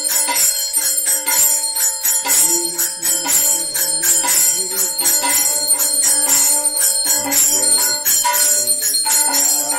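Small brass hand bell (ghanta) rung rapidly and continuously during an aarti, its bright ringing tones sustained throughout.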